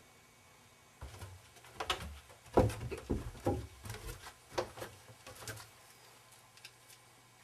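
A series of irregular knocks and thumps, about a dozen close together, loudest about two and a half seconds in, over a faint low hum.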